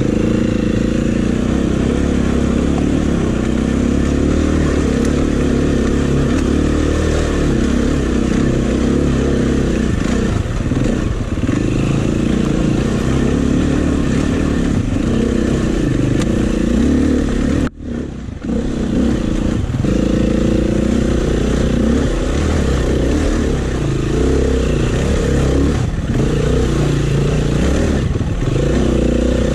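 Dirt bike engine running on a trail ride, its pitch rising and falling as the throttle is worked. About two-thirds of the way through, the sound drops away for a moment, then picks up again.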